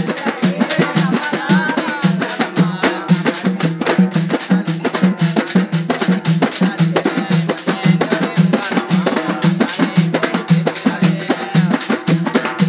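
Several large steel-shelled drums beaten with sticks by a group of drummers, playing a fast, steady rhythm of sharp strikes over a repeating low drum note.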